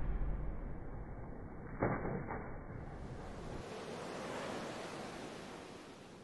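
Ocean surf washing, muffled at first and opening up brighter about three seconds in, then fading out near the end. A deep rumble dies away at the start, and two soft knocks come about two seconds in.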